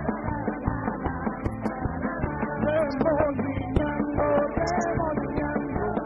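Live praise-and-worship band playing a rock-style song with a steady drum beat and guitar, a man singing lead over it.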